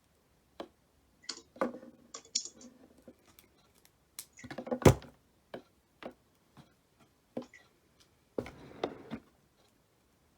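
Handling noises on a desk: scattered clicks, taps and knocks with short rustles as things are moved about, and one sharp knock about five seconds in.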